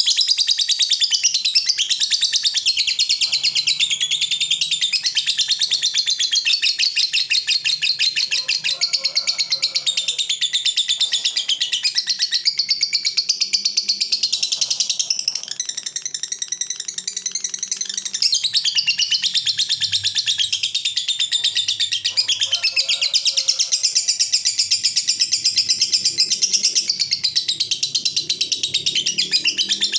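Lovebird ngekek: a long, unbroken run of rapid, high chattering notes, a dense trill that eases briefly about halfway through and then carries on.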